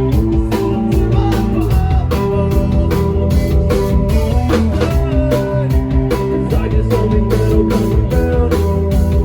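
A live rock band playing at full volume, with a drum kit keeping a steady beat under guitars.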